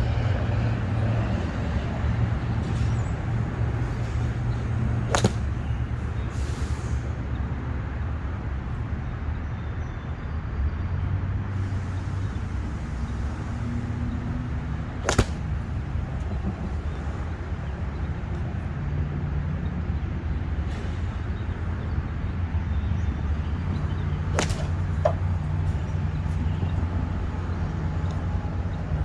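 Three golf shots about ten seconds apart: each is a single sharp click of the club face striking the ball. Under them runs a steady low rumble.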